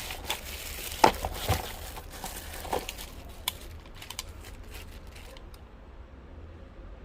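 Handling noises: a few light knocks and clicks, the strongest about a second in and again about a second and a half in, over faint rustling.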